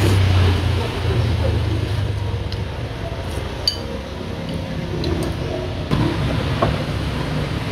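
Noodles slurped from a bowl, then a metal spoon and fork stirring the noodles and clinking a few times against a ceramic bowl, over a steady low hum.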